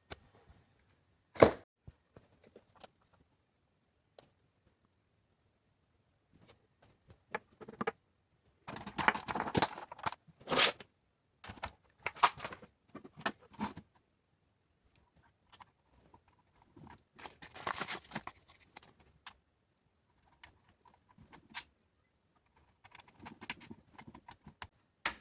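Small electronic parts being handled at a workbench: scattered sharp clicks, with several bursts of rustling and scraping, as RAM chips are fitted back into their IC sockets.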